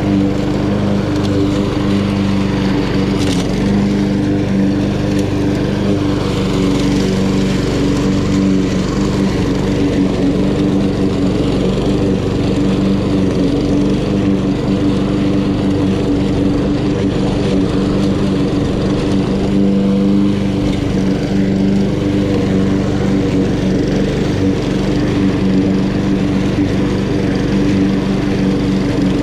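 Honda GCV170 single-cylinder engine on a Honda HRN216 walk-behind lawn mower, running steadily at a constant speed while mowing grass.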